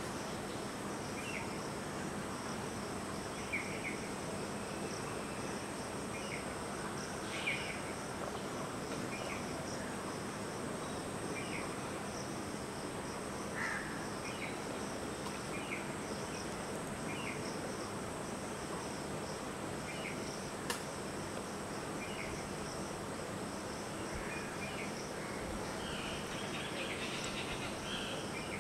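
Steady high-pitched insect chorus, with short faint chirps every second or two that gather into a denser run near the end, and a single sharp click about two-thirds of the way through.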